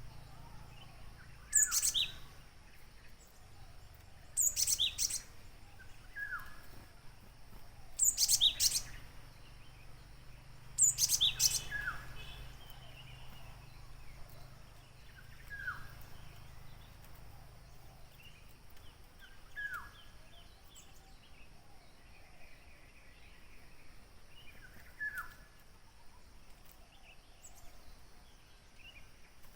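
Gelatik birds calling. Four loud, shrill bursts of rapid high notes come in the first twelve seconds, then softer single falling chirps every few seconds and short runs of quieter ticking notes.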